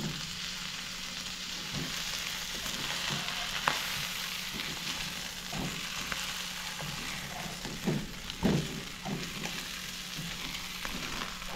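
Halved eggplants stuffed with spice paste sizzling steadily in hot oil in a nonstick wok, with a silicone spatula now and then knocking and scraping against the pan as they are pushed into place, the loudest knocks about eight seconds in.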